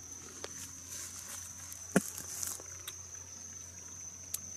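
Sunflower seeds being cracked between the teeth close to the microphone: a few sharp cracks, the loudest about two seconds in. Underneath runs a steady high-pitched insect trill.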